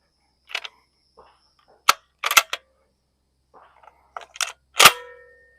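Series of sharp mechanical clicks and clacks, spaced irregularly, ending in one loud metallic clank about five seconds in that rings briefly.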